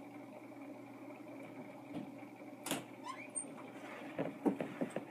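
Room tone with a steady hum, a single sharp click about two and a half seconds in, and a cluster of faint knocks near the end.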